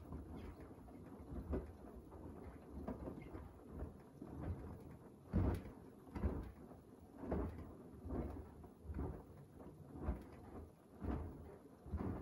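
Beko WDR7543121S washer-dryer drum tumbling a wash load in soapy water during the wash phase, over a steady low hum. From about five seconds in the load sloshes and swishes in regular surges, roughly one a second.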